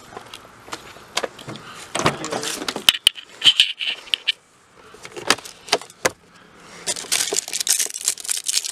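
Keys jangling and clattering, with knocks and handling noise as someone gets into a car and moves things about inside. Dense crisp rustling near the end, like papers being shuffled.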